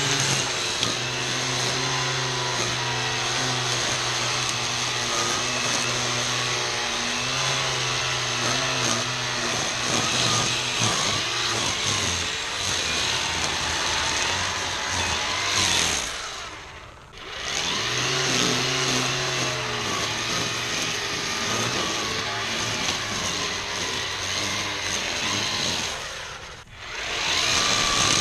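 ECHO 58-volt battery string trimmer (PAS2620 power head with a Pro-Torque trimmer attachment) running at speed, its line cutting through tall weeds and grass. Twice, a bit past halfway and again near the end, the motor winds down briefly and then spins back up.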